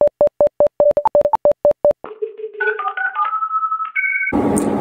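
Electronic beeping transition effect: a fast run of short beeps on one pitch, about six a second, for about two seconds, then a short sequence of held synth tones stepping between higher and lower pitches. About four seconds in it cuts suddenly to a dense hiss.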